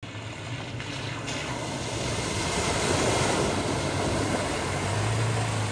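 Toyota Tacoma pickup truck driving through a large muddy puddle: its engine hums steadily while water splashes and sloshes around the tyres, growing louder as the truck comes closer.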